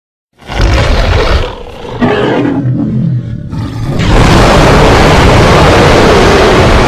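Custom Godzillasaurus monster roar sound effect, built from layered animal and film-dinosaur roars. Two shorter rough roars come about half a second and two seconds in, then a long, loud roar starts about four seconds in and holds.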